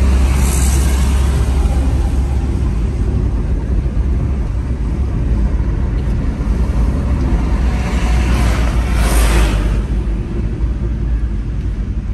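A vehicle travelling on a road: a steady loud low rumble with road and wind noise. A louder rush of noise swells about eight seconds in and dies away by ten.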